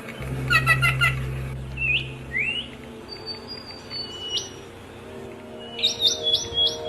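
Several small songbirds chirping and calling. There is a quick burst of chirps about half a second in, rising call notes around two seconds, thin high whistles, and a fast run of about five notes near the end. A low steady hum sits under the first half.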